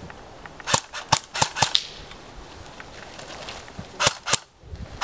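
Airsoft rifle shots: sharp single snaps, about five in quick succession around a second in, then two more about four seconds in.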